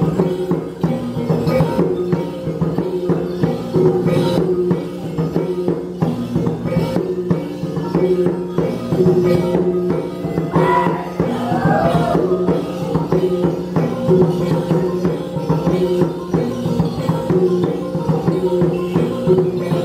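Traditional Dayak gong-and-drum music for dance: tuned gongs ringing a steady repeating pattern over regular drum beats, with jingling percussion. A short wavering call rises and falls near the middle.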